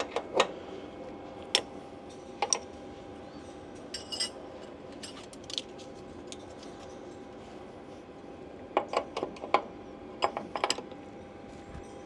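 Short metallic clicks and clinks from a wrench tightening the oil line union nuts to torque. They come singly at first, then in quick runs of several about three-quarters of the way through, over a faint steady hum.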